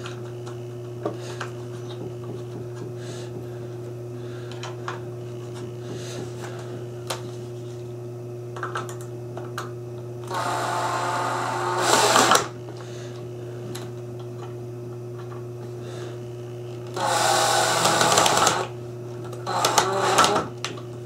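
Cordless drill-driver driving two small screws into wood: two runs of about two seconds each, then a few short bursts near the end as the second screw is seated. Faint clicks of screws being handled come before the first run.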